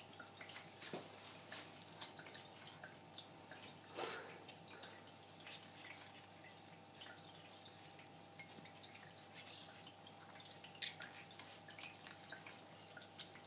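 Cats eating wet food from a ceramic bowl: soft, irregular wet clicks of chewing and licking, with one louder click about four seconds in.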